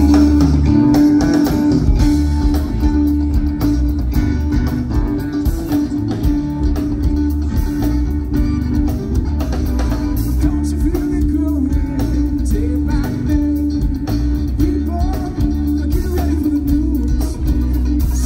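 Live yacht-rock band playing through a PA: electric guitar, bass guitar and a drum kit keeping a steady beat.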